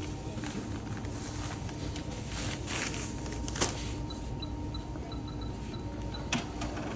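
Shop checkout-counter ambience: a steady electrical hum with scattered small clicks and handling knocks, one sharper click about halfway through. A run of faint, short, high beeps comes from about four to six seconds in.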